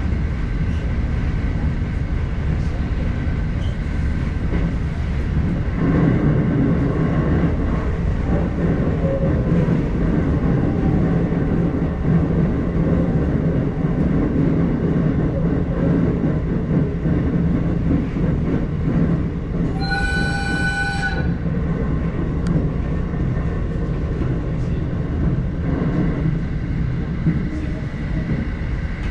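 Electric commuter train running at speed, heard from inside, with a steady rumble of wheels on rails. About twenty seconds in, a train horn sounds once for a little over a second.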